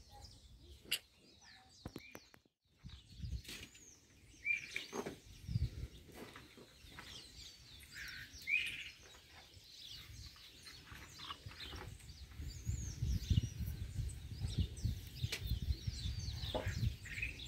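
Birds chirping and calling, many short high chirps overlapping, with a low rumble in the second half.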